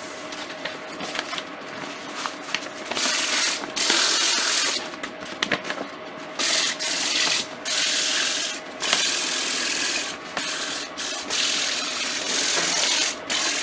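120- and 180-grit abrasive paper hand-sanding a pine table leg spinning on a wood lathe: a hissing rasp that swells and drops off again and again as the paper is pressed on and lifted, over the lathe's faint steady hum.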